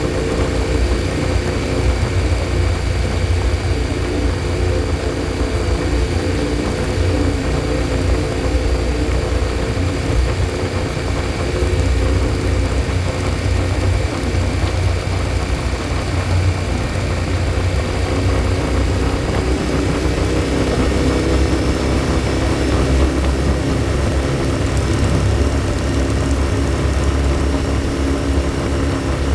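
Motorcycle engine running at a steady cruising speed, with a strong low rumble and steady wind and road noise. The engine note shifts slightly about two-thirds of the way through.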